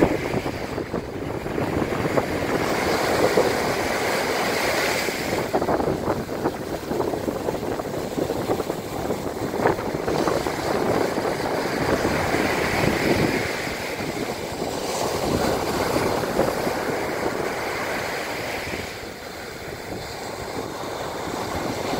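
Ocean surf: small waves breaking and foaming up a sandy shore, a steady wash that swells and eases every few seconds.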